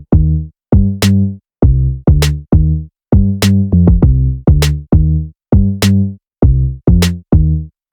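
Electronic background music: a programmed drum-machine beat with a deep bass line and a sharp snare-like hit a little over once a second.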